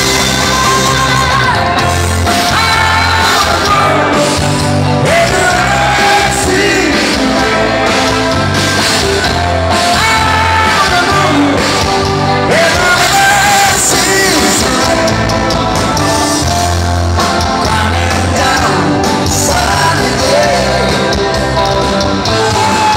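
Live rock band playing loudly through a PA, with electric guitar, keyboards and a lead singer's voice over a heavy bass beat.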